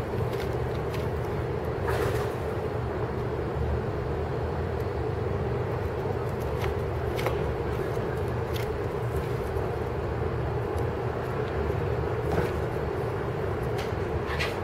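Steady low hum and rumble of urban background noise, with a few faint clicks scattered through it.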